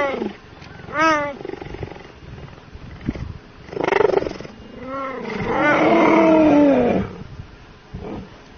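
Leopard making high, cat-like meowing calls: a short one about a second in, a rougher one about four seconds in, then a longer drawn-out pair around five to seven seconds.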